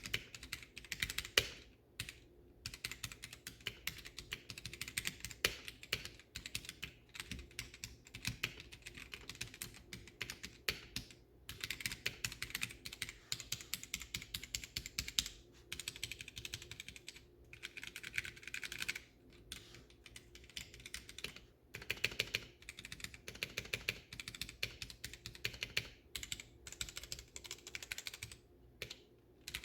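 Normal-paced typing on a Womier K87 mechanical keyboard with Gateron Red linear switches and double-shot ABS keycaps, in an undampened acrylic case: fast runs of key clacks broken by brief pauses.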